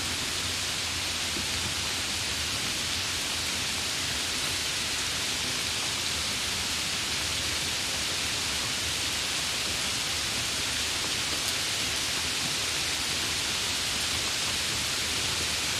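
Steady, heavy rain: an even hiss with no distinct drops or thunder.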